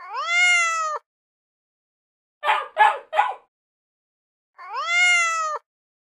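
A cat meowing twice, two identical one-second meows that rise then hold, about four and a half seconds apart, with three short rough calls in quick succession between them. The dead silence around each sound points to dubbed sound-effect clips.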